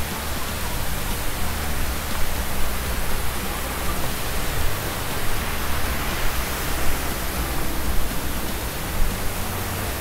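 Waterfall rushing: a steady, even wash of water noise.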